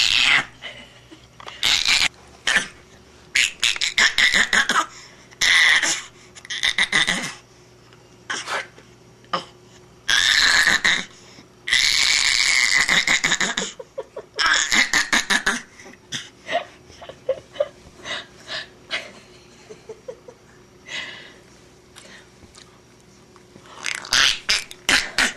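A baby's rapid, staccato laughing and squealing in repeated bursts, some lasting a second or two, with short pauses between.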